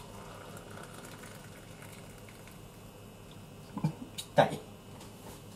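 Hot water poured from an electric kettle into a ceramic cup, a thin steady stream of water. About four seconds in, a few sharp knocks and one louder clunk of hard objects.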